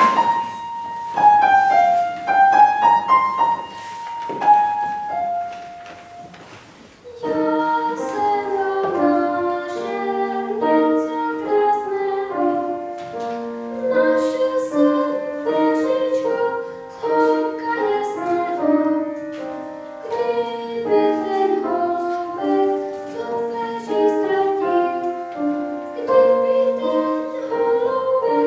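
Upright piano playing a short introduction, then a boy singing a song from about seven seconds in, accompanied by the piano.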